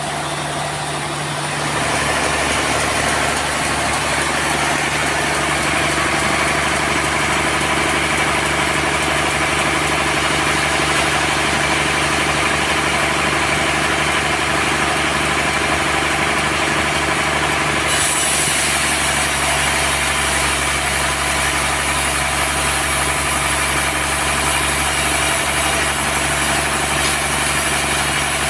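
Sawmill machinery running steadily. It gets louder about two seconds in and gains a brighter, hissier edge about eighteen seconds in.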